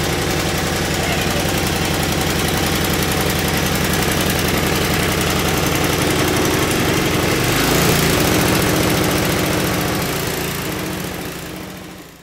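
Small gasoline engine running steadily, its fuel supply restored after the carburetor bowl was filled; about eight seconds in its pitch rises a little, and near the end the sound fades out.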